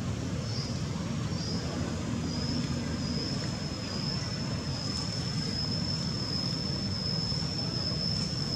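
Steady outdoor background: a low rumble with a single thin, high, unbroken whine above it. The whine wavers briefly at first, then holds steady.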